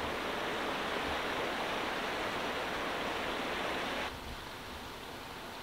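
A swollen river rushing, as a steady hiss of moving water. It drops to a quieter level about four seconds in.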